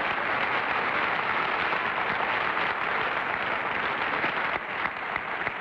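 Steady applause from many clapping hands, the studio audience and panel greeting the revealed contestant, thinning a little about four and a half seconds in.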